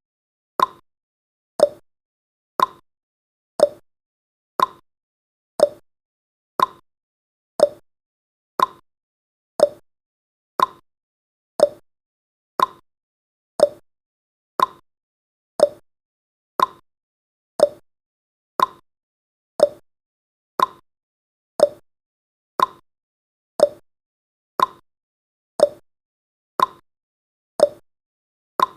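Clock-tick sound effect of a countdown timer: a steady, even tick about once a second.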